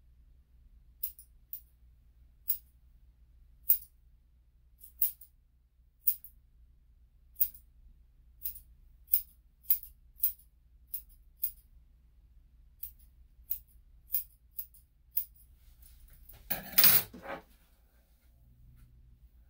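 Grooming shears snipping a small dog's facial hair: about eighteen crisp single snips, spaced irregularly half a second to a second apart. Near the end comes one louder clatter lasting under a second.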